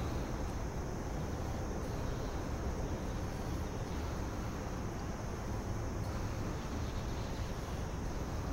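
Steady outdoor background rumble and hiss, mostly a low, fluctuating rumble of wind on the microphone; no balloon pop.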